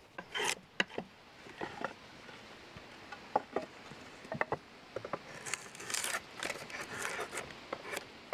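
A drawknife shaving a thin wooden stake held in a shaving horse: a string of short scraping strokes mixed with sharp little clicks and knocks, coming more thickly in the second half.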